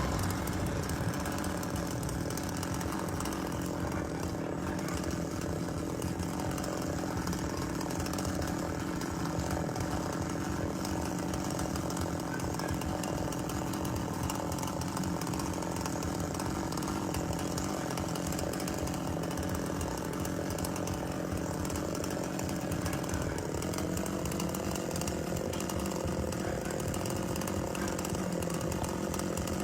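Chainsaw engine running steadily at speed, its pitch rising slightly about two-thirds of the way through.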